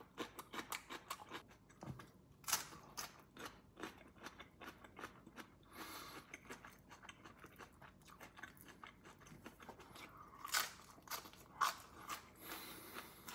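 Close-up crunching and chewing of crisp napa cabbage leaves: quick, irregular crunches, with a few louder bites standing out.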